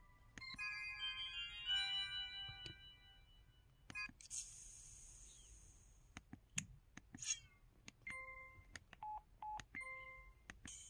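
A run of built-in sound effects from an SKY IM-S330K mobile phone. It opens with a short melody of chiming electronic tones, then a brief hiss about four seconds in, then a few clicks and a swish. Short electronic beeps come near the end.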